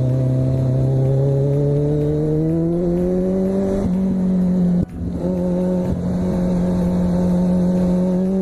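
Kawasaki Z1000's inline-four engine pulling under acceleration, its pitch rising steadily over the first few seconds and then holding level at a steady cruise. There is a brief sharp drop in sound just under five seconds in.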